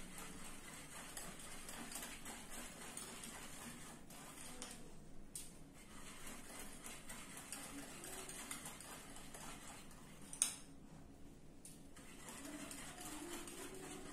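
Pancake batter being stirred by hand in a bowl: faint scraping of the spoon against the bowl, with one sharp clink about ten seconds in.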